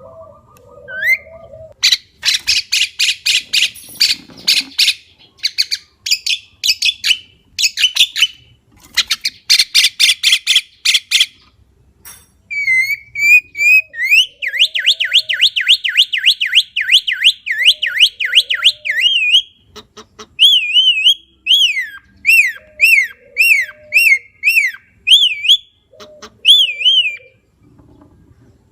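Javan myna calling: first a long series of harsh, rasping notes, then a fast run of rising-and-falling whistles, then repeated single downslurred whistles.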